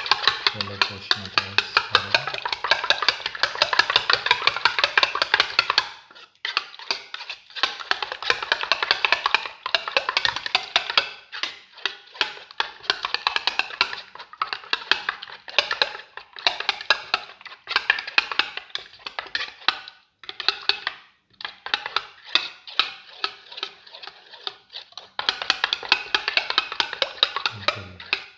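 Metal spoon beating eggs in a ceramic plate: quick, steady clicking and tapping of metal on ceramic, with a few brief pauses. Background music runs under it in the first seconds and again near the end.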